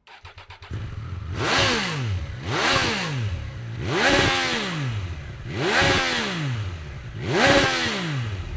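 Triumph Tiger Sport 800's three-cylinder engine on its standard exhaust, blipped five times from idle. Each blip rises quickly and falls back to idle.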